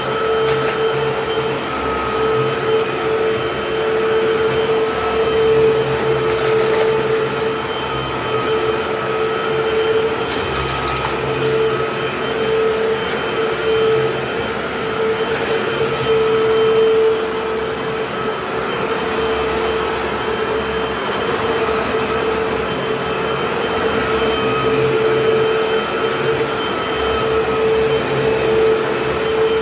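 Vacuum cleaner running steadily on a rug: a constant motor whine with small swells in level.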